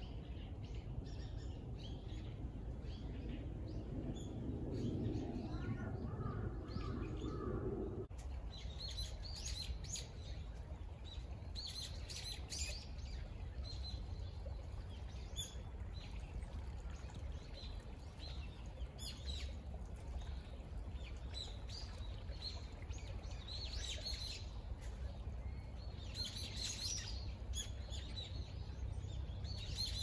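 Small birds chirping in the woodland, with short high calls scattered and repeating, over a steady low background rumble. Near the start a muffled rushing noise lies under the calls and stops abruptly about a quarter of the way through.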